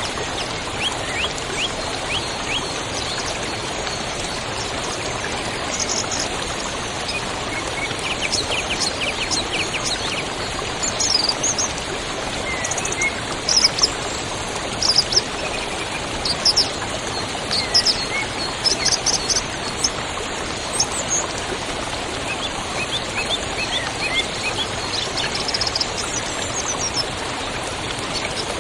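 Waterfall water rushing steadily, with small songbirds chirping and trilling over it, busiest in the middle stretch.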